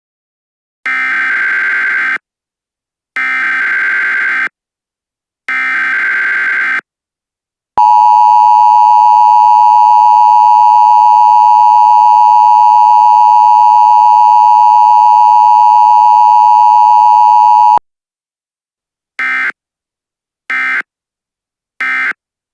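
Emergency Alert System tones. Three screeching digital header bursts of about a second each come first, then the harsh two-tone EAS attention signal held steady for about ten seconds before cutting off abruptly. Three much shorter data bursts follow near the end.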